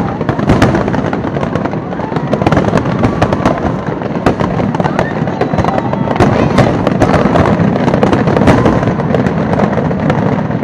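A dense barrage of aerial firework shells bursting in rapid, overlapping succession, a continuous rumble of booms and crackle with no pause.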